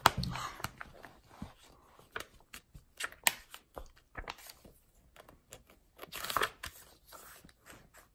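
Quiet rustling and scattered small clicks from paper book pages being handled, with a louder rustle about six seconds in.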